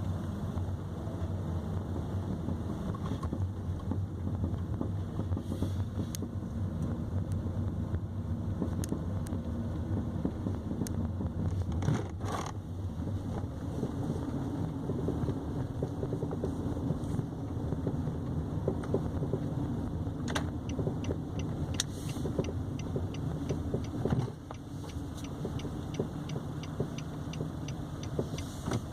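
2015 Nissan Sentra on the move: steady low road-and-tyre rumble broken by a few sharp knocks. The knocks are typical of the metallic knocking from the right front suspension that the owner complains of, which a dealer consultant confirmed and meant to cure with a new shock absorber.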